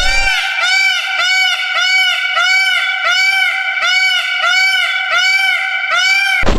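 An animal calling in a steady series of about a dozen short, high-pitched calls, about two a second. Each call rises and then falls in pitch. The series starts and stops abruptly.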